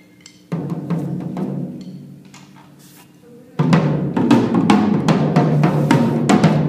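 Drum kit played with cymbals: a hit about half a second in that rings away, then from about three and a half seconds a dense run of drum and cymbal strikes.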